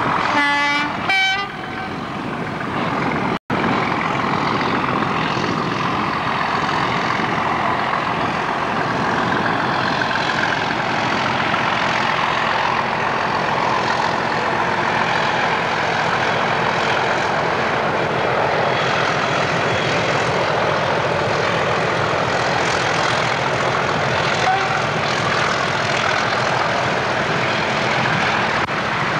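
Class 37 diesel locomotive sounding two short horn blasts about a second in, then running steadily as it hauls a train of loaded tank wagons past.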